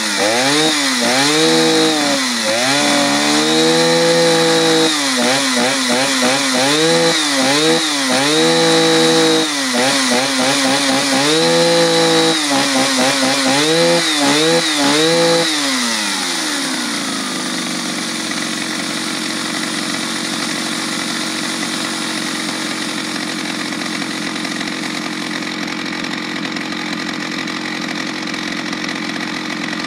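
Vintage Jonsered 601 two-stroke chainsaw engine revved repeatedly, its pitch rising and falling with each blip of the throttle. About halfway through it drops back and idles steadily.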